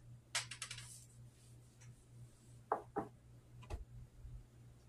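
Light clicks and knocks from things being handled on a kitchen counter: a quick rattle of clicks about half a second in, two sharper knocks a quarter second apart near three seconds, and one more click shortly after, over a faint steady low hum.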